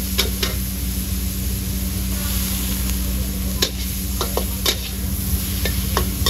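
Seafood stir-frying in a hot wok: a steady sizzle over a low hum, with a metal spatula striking the pan in a few sharp clacks as the food is stirred.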